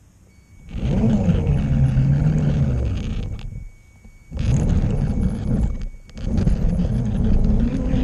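Model train's motor and wheels running on the track: a loud rumble with a whining hum that shifts in pitch, starting about a second in as the train pulls away, and cutting out briefly twice.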